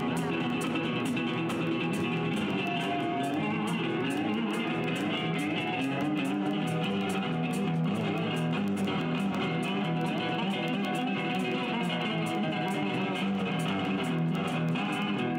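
Background music led by plucked guitar, playing steadily throughout.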